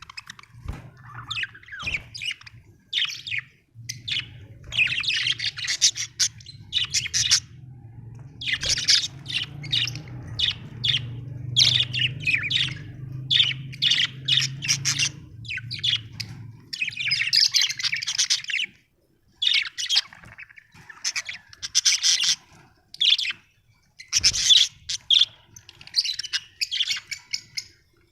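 Budgerigars chirping and chattering: a steady stream of short, high chirps and squawks in quick runs with brief pauses.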